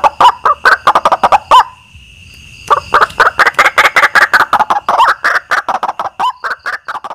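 White-breasted waterhen calls from a lure recording: a rapid run of loud, repeated croaking notes that stops about a second and a half in, then starts again a second later in a long series that fades near the end. A thin, steady high tone runs underneath.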